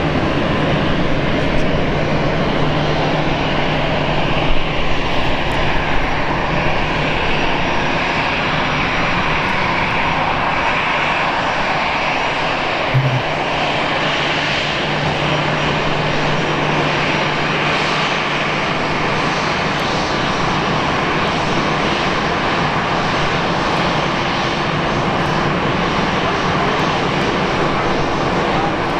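Airbus A320-214's twin CFM56 turbofan engines running at taxi power as the jet rolls past, a steady jet engine rumble and whine.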